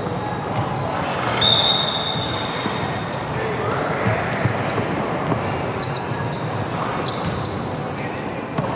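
Basketball game in a sports hall: a basketball bouncing on the court, short high squeaks of trainers on the floor, and players' voices, all echoing.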